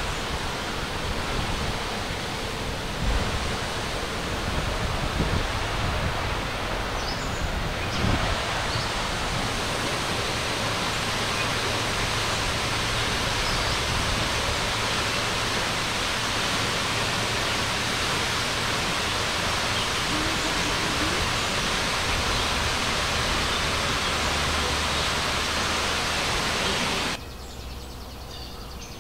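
Steady rush of water from Marymere Falls, a 90-foot waterfall: an even hiss with no pitch. Near the end it cuts off suddenly to a much quieter background with a few faint high chirps.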